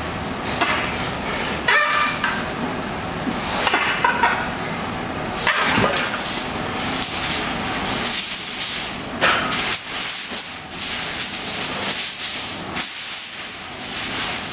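Gym weights clinking and clanking as dumbbells or bars are handled during arm exercises, sharp knocks every second or two. A steady high hiss comes in about six seconds in and stays.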